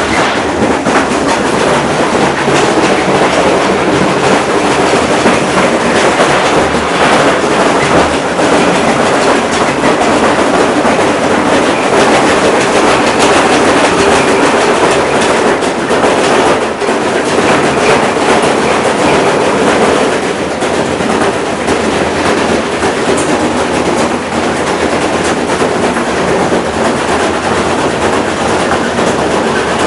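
Washing machine running with a brick inside the drum: continuous loud clattering and knocking as the brick tumbles and bangs against the drum.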